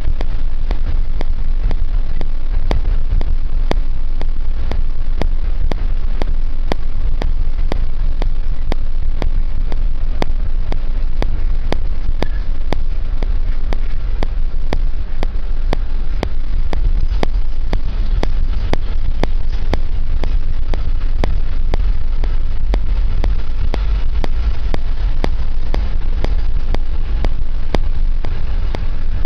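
A road vehicle on the move, heard from on board: a loud, steady low rumble of engine and road noise that does not let up.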